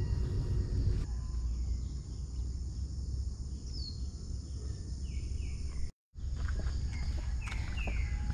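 Outdoor ambience under a low steady rumble: a continuous high insect chirring with several short, downward-sliding bird chirps, two in quick succession about five seconds in and two more near the end. The sound drops out completely for a moment about six seconds in.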